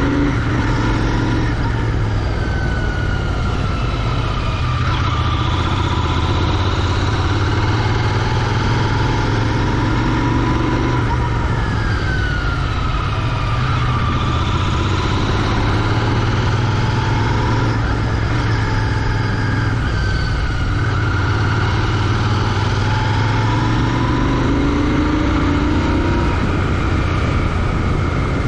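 Royal Enfield Continental GT 650's 648 cc parallel-twin engine through its stock exhaust, running steadily under way, its pitch rising and falling several times with the throttle.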